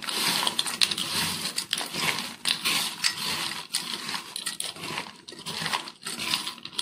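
Crisp pan-fried Maggi noodle pieces crackling and rustling as a hand tosses them with chopped onion and tomato in a steel bowl, an irregular run of crunchy crackles.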